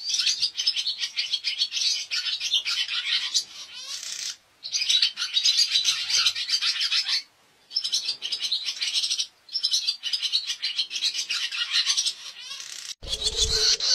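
Barn swallow twittering song: fast, chattering phrases a few seconds long with short pauses between them. Near the end a low scraping rub comes in.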